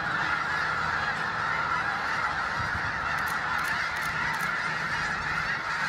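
A huge flock of snow geese calling all at once: a steady, unbroken din of overlapping honks.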